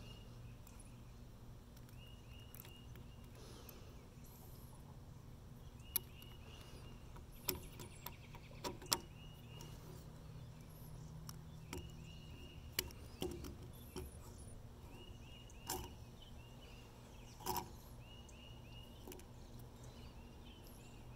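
Scattered sharp clicks and taps of a 3D-printed plastic spinner and its stacked metal disc weights being handled and fitted together, over faint outdoor ambience with groups of short high chirps every few seconds.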